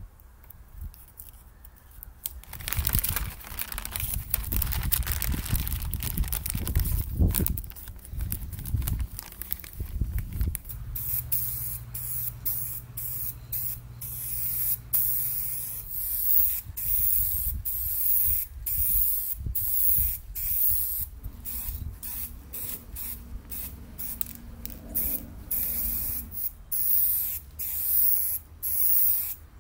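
Paint being sprayed onto a wooden shelf in many short hissing bursts, roughly one a second, after a longer, louder stretch of rushing noise in the first ten seconds.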